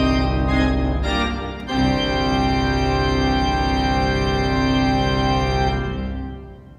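Pipe organ playing full chords over deep pedal bass. After a brief break, the closing chord of the piece is held for about four seconds, then released and dies away in the room's reverberation.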